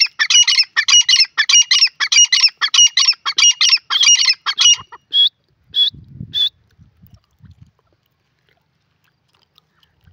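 Grey francolin calling: a rapid run of loud, harsh, repeated calls for about five seconds, then three single clearer notes about half a second apart before it falls silent.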